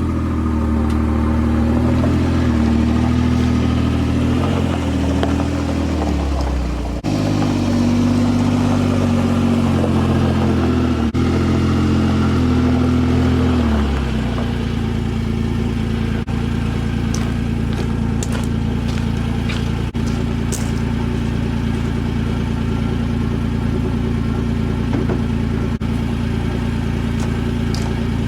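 Small gasoline engine of a Troy-Bilt sidewalk edger running, held at a steady pitch in two stretches and then changing to a lower, steadier drone about halfway through, with scattered light clicks near the end.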